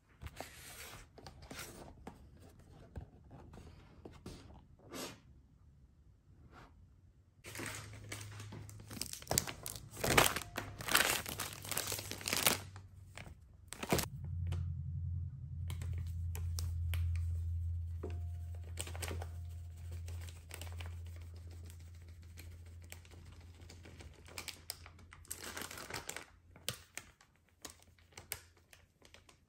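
Plastic bag of ube mochi pancake mix crinkling and being torn open, loudest from about eight to thirteen seconds in, then rustling as the powder is poured into a measuring cup. A low steady hum runs under the middle stretch.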